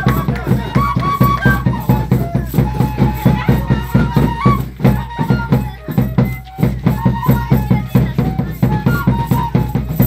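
Traditional Andean dance music: a high melody of held notes over a quick, steady percussion beat, dipping briefly about halfway through.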